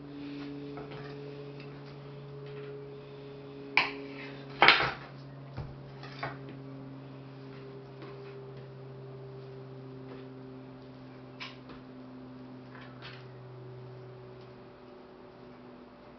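Kitchen utensils clicking and knocking a few times over a steady low hum. The loudest knock comes a little under five seconds in, and the hum fades out near the end.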